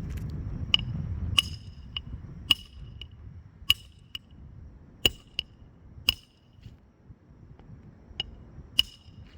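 A hammer driving roofing nails into a new asphalt shingle: about a dozen sharp, ringing metallic strikes at an uneven pace, with a pause of about two seconds before the last two.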